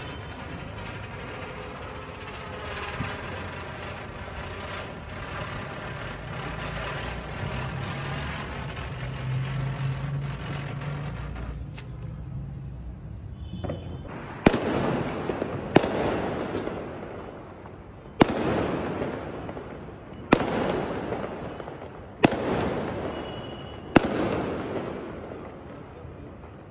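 A ground firework burning with a steady hissing crackle for about twelve seconds, then dying out. After that, six sharp fireworks bangs come about two seconds apart, each dying away with an echo over a second or so.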